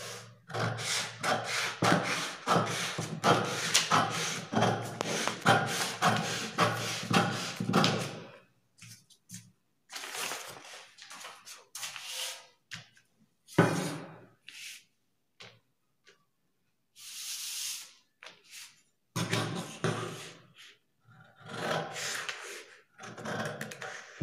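Scissors cutting through drafting paper along a straight pattern line: a quick run of snips, a stretch of scattered snips with a brief paper rustle, then another run of snips near the end.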